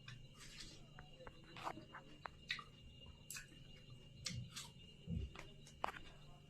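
Close-miked chewing and wet mouth sounds of someone eating juicy fruit: irregular soft smacks and clicks, with a couple of dull low thuds past the middle.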